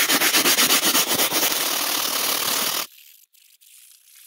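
Hand brush scrubbing a cloth bench-seat cover wet with spray cleaner: fast, rhythmic back-and-forth scrubbing strokes that stop abruptly about three seconds in.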